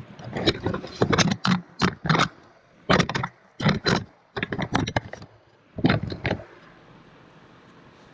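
Metal hand tools clattering and clinking at irregular intervals as a socket extension is dug out and handled. The clatter stops about six and a half seconds in, leaving a faint steady hiss.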